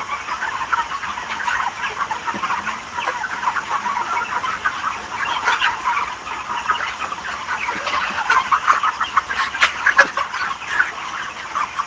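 A flock of chickens clucking continuously, many birds calling over one another, with a few sharp taps about two-thirds of the way through.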